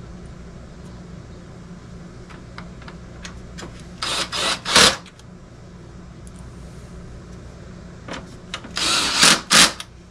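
Ryobi cordless drill/driver running in two short bursts, driving screws into the plastic housing of a dehumidifier being put back together, with a few light clicks before the first burst.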